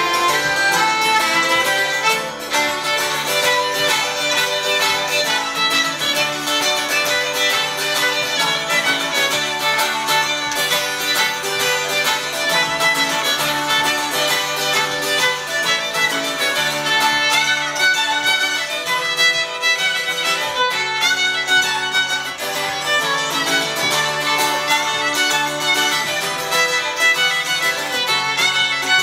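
Fiddle, hammered dulcimer and twelve-string acoustic guitar playing a set of jigs together, with the fiddle prominent.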